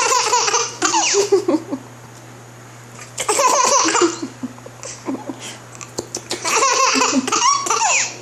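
Baby laughing in three bouts: at the start, about three seconds in, and near the end.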